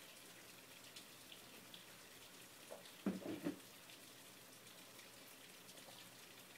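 Faint gulping of beer being chugged from glasses over a low room hiss, with scattered small liquid ticks. About three seconds in comes a brief cluster of louder low sounds.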